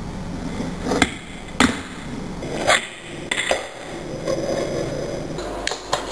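Fingerboard clacking against a hard counter top and book as it is popped, flipped and landed: about seven sharp, irregularly spaced clicks of the small deck and metal trucks hitting the surface.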